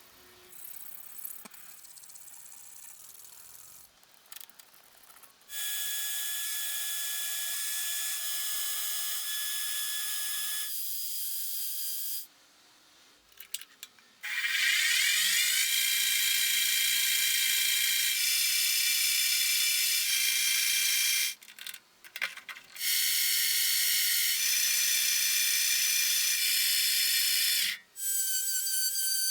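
A power tool running in long bursts of several seconds each, a high hiss with a steady whine, stopping and starting again with short pauses between; lighter clicking and rattling in the first few seconds.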